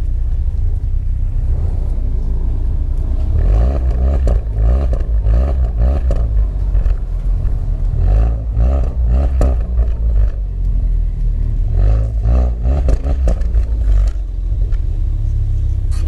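Ford Focus ST's turbocharged 2.0-litre four-cylinder, with a stage 3 tune, downpipe and resonator delete, heard from inside the cabin. It rumbles low at first, then revs up again and again a few seconds apart as the car pulls away.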